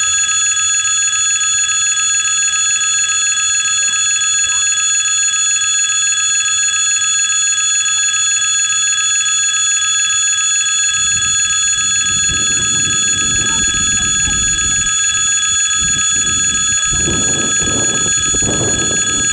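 Railroad crossing warning bell ringing continuously and steadily while the crossing signals flash. A low rumble builds up in the second half, swelling strongest near the end.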